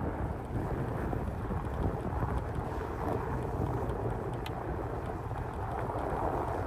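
Steady rumble of a vehicle on the move, with a few faint clicks.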